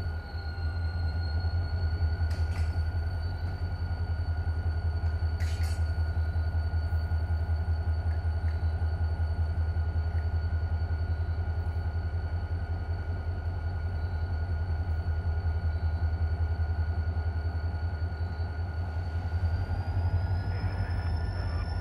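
Freight train's diesel locomotive running with a steady low rumble and a thin high whine; the whine rises in pitch near the end. Two sharp metallic clinks come in the first several seconds.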